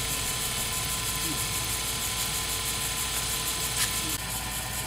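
Lathe running steadily, spinning a resin pen blank on its mandrel, with a steady motor hum and hiss and nothing cutting or sanding it.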